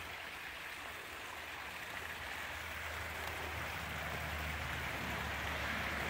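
Small woodland waterfall splashing down a rock ledge into a stream: a steady rushing hiss that grows a little louder over the few seconds.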